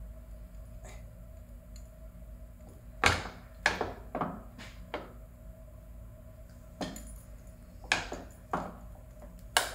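Sharp knocks and clacks as a solid rubber tire is pried and worked onto an electric scooter's hub-motor wheel rim: about nine irregular knocks, starting about three seconds in, the loudest near the start and end of the run.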